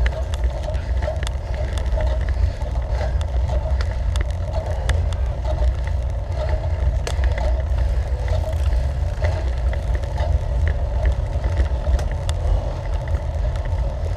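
Wind rushing over the microphone of a camera riding on a moving road bicycle, with steady road noise and frequent small clicks and rattles throughout.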